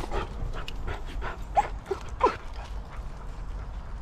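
A small dog giving a few short cries around the middle, the loudest two close together, the last one sliding down in pitch.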